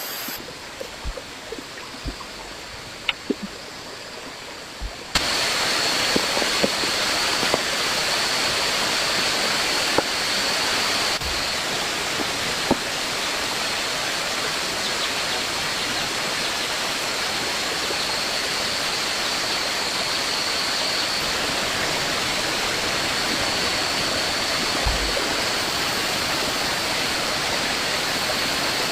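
Scattered light knocks over a quiet background. About five seconds in, these give way suddenly to the steady rushing of flowing water, with a thin steady high tone running over it.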